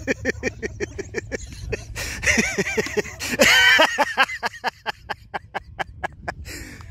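A person laughing hard in rapid, evenly paced bursts, with a loud drawn-out shriek of laughter a little past three seconds in.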